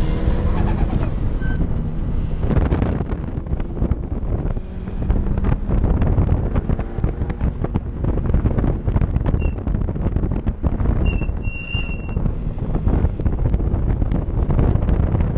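Loud car engine and road noise, with short high beeps at about nine and eleven seconds in.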